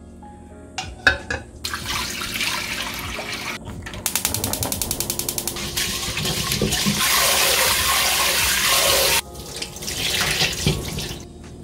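Rice being washed by hand in a rice-cooker inner pot under a running kitchen tap: water running and sloshing, with a quick, even swishing about four seconds in as the grains are scrubbed. The flow cuts off suddenly near the end, and the milky rinse water is then poured out into the steel sink.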